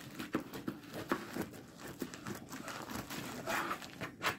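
Shipping packaging being ripped open and handled: irregular crinkling and tearing with short clicks and taps, busiest about three and a half seconds in.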